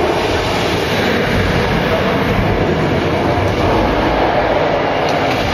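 Loud, steady rumbling noise from the tram tour's dinosaur screen show, its effects soundtrack mixed with the running tram car. No single roar or impact stands out.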